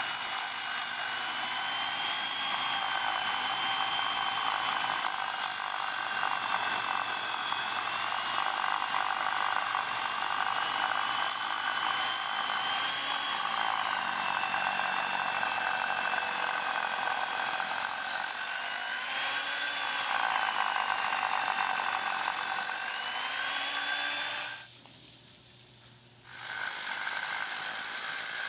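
Skilsaw circular saw on a wheeled joint-cutting cart cutting out a concrete floor joint, with its dust-extraction vacuum running; a steady whine whose pitch dips and rises as the blade loads up in the cut. The noise drops away abruptly for about a second and a half near the end, then comes back.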